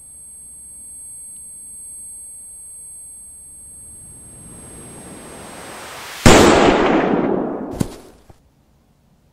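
A rushing noise swells over several seconds under a faint high steady tone, then a loud explosion goes off about six seconds in and dies away over about two seconds.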